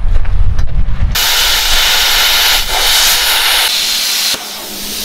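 A low rumble for about a second, then the steady hiss of an electric welding arc on steel channel for about three seconds, cutting off sharply near the end.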